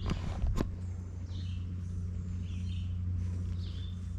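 Birds chirping in short, scattered calls over a steady low hum, with two sharp knocks right at the start.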